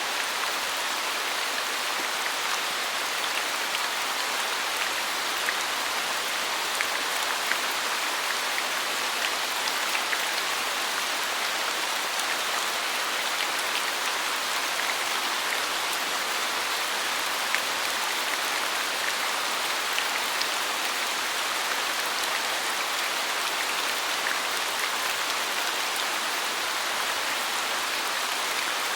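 Steady, heavy rainfall, with scattered sharp drop ticks over an even hiss.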